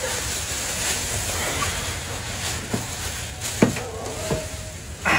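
Plastic packaging and the cardboard flaps of a TV box being handled: steady rustling and crinkling with a few sharp knocks, the loudest about three and a half seconds in.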